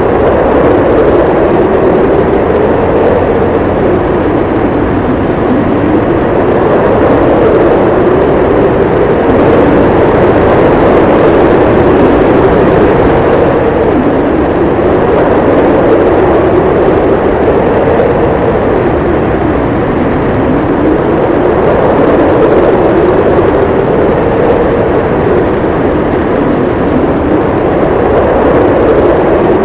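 Howling snowstorm wind: a steady loud rush with a moaning tone that slowly rises and falls in pitch every few seconds, swelling and easing in strength.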